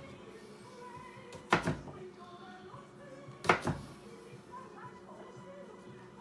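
Large kitchen knife chopping through a raw turnip and knocking on a wooden cutting board: two heavy chops about two seconds apart, each a quick double knock. Faint music plays underneath.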